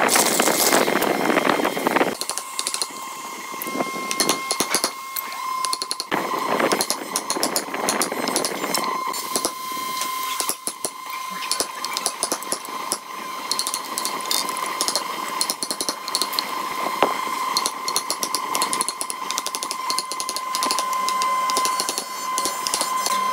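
Corded electric drill boring into a hardwood block, stopping about two seconds in. Then a wooden mallet striking a chisel again and again, chopping wood out of the joint.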